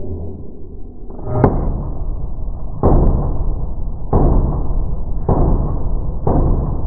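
Five pistol shots from a Glock 19C with a ported barrel, played back slowed down: deep, muffled booms about a second apart, each dying away slowly.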